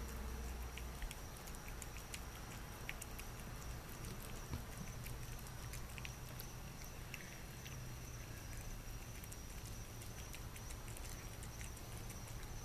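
A cat chewing wet food from a bowl: faint, irregular little clicks and smacks of eating, with a steady high-pitched tone behind.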